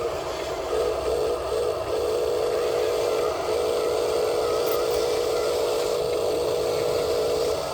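Small electric motor and gearbox of an RC model vehicle whining. It comes in short spurts about a second in, then runs steadily for long stretches.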